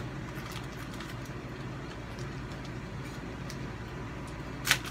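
Steady low background hum with faint scattered clicks, and one short sharp crackle near the end.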